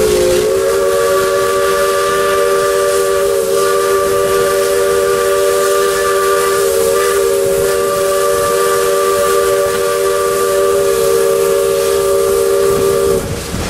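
Steam locomotive whistle blowing one long, steady blast of about thirteen seconds, sounding a chord of three notes over a hiss of steam, then cutting off near the end.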